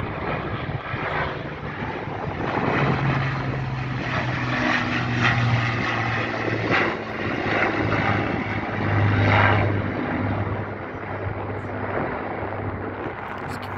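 Avro Lancaster bomber's four Rolls-Royce Merlin V12 engines and propellers running in a low flypast, a steady low drone. It is loudest about nine seconds in, then eases off as the pitch drops a little while the aircraft moves away.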